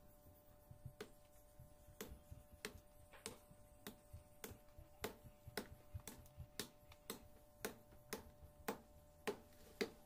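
Faint, evenly spaced sharp ticks, about two a second, growing louder towards the end, over a low steady hum.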